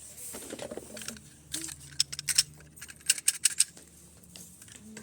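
Sharp plastic clicks and rattling of a Nerf blaster being loaded with foam darts, coming in irregular clusters of quick clicks.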